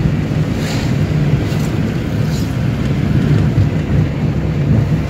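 Steady low rumble of a car driving at highway speed, heard inside the cabin: engine and tyre noise with no speech.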